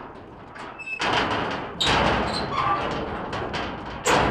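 Thumps and clatter inside a steel stock trailer with a wooden floor as llamas are loaded, with a brief metal squeak. About four seconds in, the trailer's metal rear gate bangs shut, the loudest sound.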